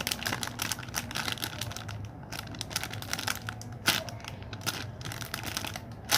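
Plastic packaging crinkling and crackling as it is handled, with a few sharper snaps.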